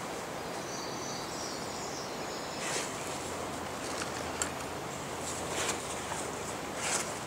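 Steady rushing of creek water spilling over the remains of a small dam, with a faint high chirp about a second in and a few light clicks.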